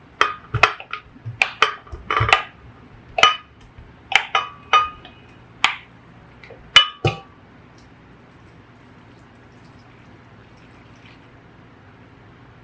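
Cut peach pieces dropped one by one into a glass blender jar, each landing with a knock and a short glassy ring: about a dozen hits in quick, uneven succession over the first seven seconds, then only a faint steady hum.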